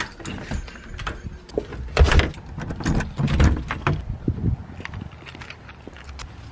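A keyring jangling and clicking at a front-door deadbolt, then a few heavy thumps about two and three seconds in, the loudest sounds here.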